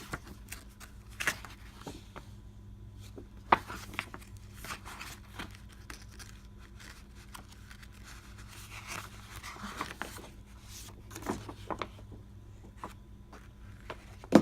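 Paper and cardboard rustling, with light taps and clicks, as the contents of a board game box are handled and the rule book leafed through. A steady low hum runs underneath.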